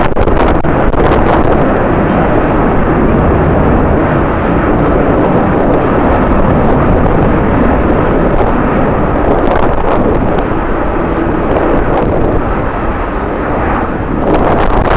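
Jet airliner engines running, mixed with strong wind buffeting the microphone: a loud, steady noise throughout.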